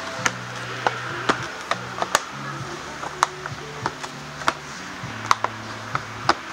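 Sharp, irregular clicks and snaps of a scooter's plastic body panels and their clips being pried apart by hand, about a dozen in all. Under them runs background music with a low, steady bass.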